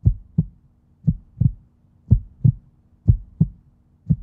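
Heartbeat sound effect: pairs of low thumps (lub-dub), about one pair a second, over a faint steady low hum.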